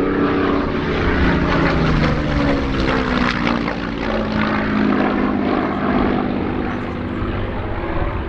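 Hawker Hurricane's Rolls-Royce Merlin V12 piston engine and propeller running loud as the fighter passes overhead. The engine note slides down in pitch over a few seconds in the middle as it goes by.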